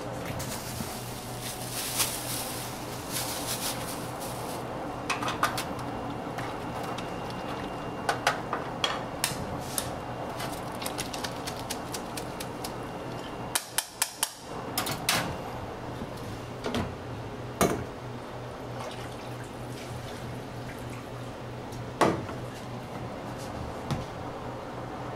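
A stainless steel pot and utensils clinking and knocking on a steel kitchen counter as a noodle soup is assembled: scattered sharp taps with one louder knock near the end, over a steady low kitchen hum.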